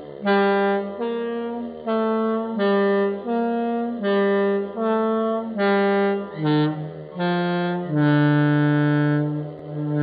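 Scania bus musical horn playing its tune slowed down: a run of short reedy pitched notes stepping up and down, then two longer low notes near the end.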